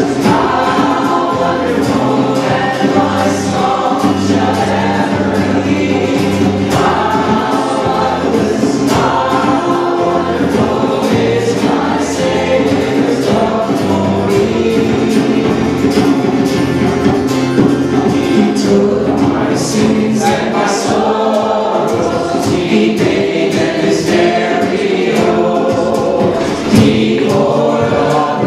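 Live worship song: two acoustic guitars strummed under several voices singing together.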